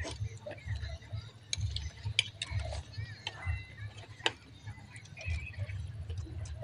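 Spoons and chopsticks clinking and tapping against ceramic bowls and plates while eating, in scattered irregular clicks, the sharpest one about four seconds in, over a low steady hum.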